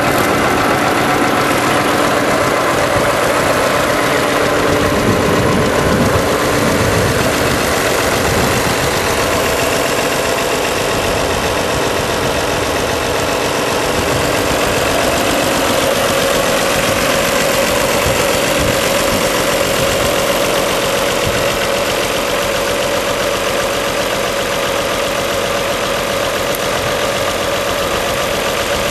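A 1955 Allis-Chalmers WD-45 Diesel's six-cylinder diesel engine idling steadily, just after a preheated warm start.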